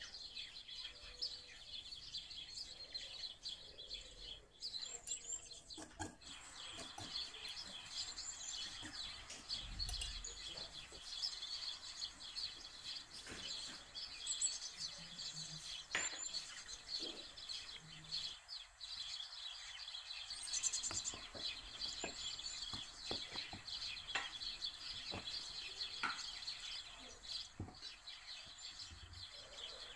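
Small birds chirping continuously in the background, with scattered light clicks and taps from ingredients being added and flour being mixed by hand in a glass bowl.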